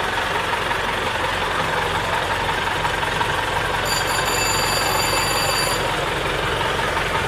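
Motor vehicle engines running steadily under a dense wash of outdoor noise, with a thin high-pitched tone sounding for about two seconds midway.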